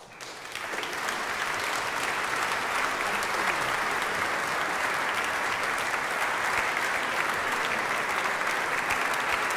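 Concert audience applauding at the end of the performance. The applause swells over about the first second, then holds steady with no music under it.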